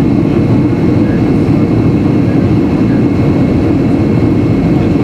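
Steady loud cabin noise inside a Boeing 757-300 airliner: an even rumble of engines and airflow, with a faint thin whine above it.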